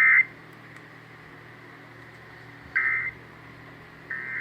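Three short bursts of Emergency Alert System SAME digital data tones over a weather radio: a warbling two-tone data chirp of about a third of a second each, at the start, about 3 s in and near the end. They fall between two spoken alerts, and bursts this short are typical of the end-of-message code that closes an alert.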